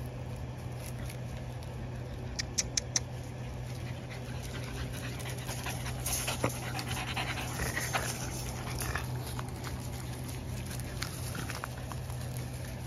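French bulldog panting with its mouth open. A few quick sharp clicks come a couple of seconds in, over a steady low hum.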